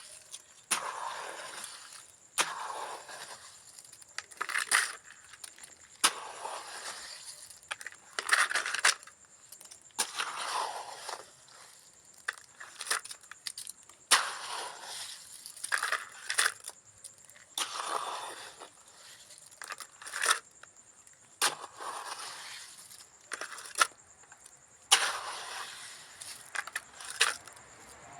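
Hand masonry work with cement mortar and bricks: repeated short scraping strokes mixed with sharp clicks and taps, coming irregularly every second or two.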